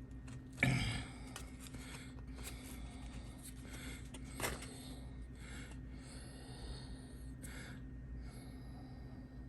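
A person breathing heavily through the nose in short puffs, with a sharper breath about half a second in and a single small click about four and a half seconds in, over a steady low electrical hum.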